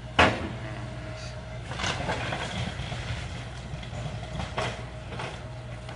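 A house roof being torn apart in demolition: a sharp crash about a quarter second in, then a long stretch of crackling and crunching with a few more cracks as timbers and debris break. A heavy machine's engine hums steadily underneath.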